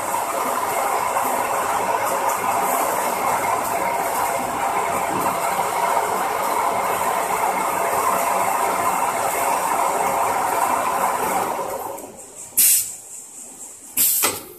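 Tyre stretch-wrapping machine running steadily as its rotating ring winds stretch film around a bike tyre; the running noise stops about twelve seconds in. Two short, sharp hisses of compressed air from its pneumatic cylinders follow near the end.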